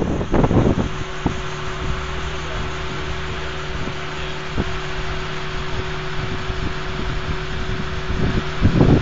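Wind buffeting the microphone, dropping away about a second in to leave a steady low mechanical hum with a faint held tone, then gusting again near the end.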